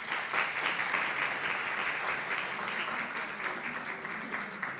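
Applause from a small seated audience, a dense patter of clapping that thins out and fades near the end.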